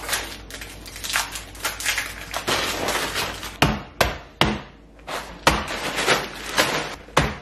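A Ziploc bag full of Lotus Biscoff cookies crinkling as it is handled, then a meat mallet pounding the bag against a granite countertop, crushing the cookies. About seven sharp knocks come less than a second apart.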